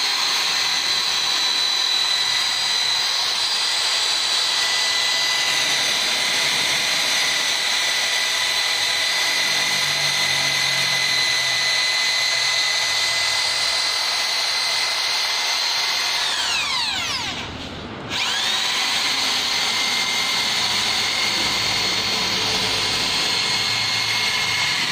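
Corded electric drill running steadily with a long bit, boring a socket into the end of a hard ibul-wood spear shaft for the spearhead. About seventeen seconds in the motor winds down almost to a stop and then spins back up.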